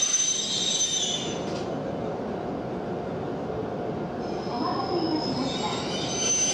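Steel train wheels squealing on the rails in high steady tones over a continuous rolling rumble. The squeal fades out about a second and a half in and comes back near the end.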